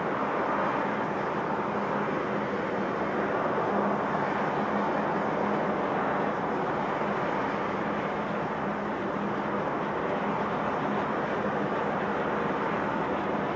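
Tugboat diesel engines running steadily under load, with a low hum and the rush of churning prop wash.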